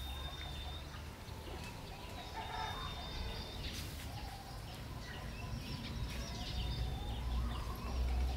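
Birds calling, with short chirps and a thin held whistle that comes back a few times, over a low rumble that grows heavier near the end.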